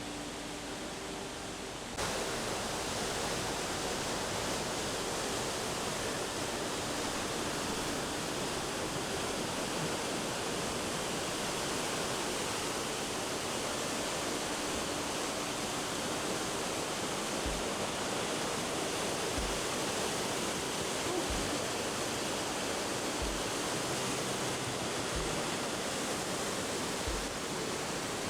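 Steady rushing water, as of a waterfall, stepping up abruptly in level about two seconds in.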